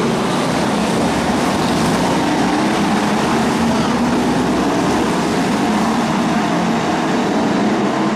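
BriscaF1 stock cars' V8 engines running flat out around a shale oval: a loud, steady mass of engine noise with the engine notes wavering slightly up and down.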